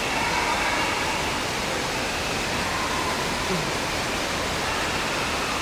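Water park din: a steady rush of falling and splashing water, with faint distant voices in the background.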